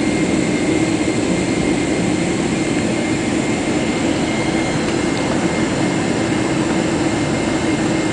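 GE90-115B turbofan of a Boeing 777-300ER at takeoff thrust, heard from inside the cabin as a loud, steady rushing noise with steady high whines on top.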